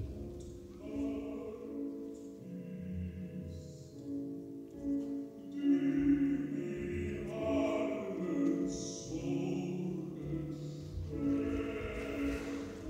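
Choral music: several voices singing long held notes that overlap and change every second or two.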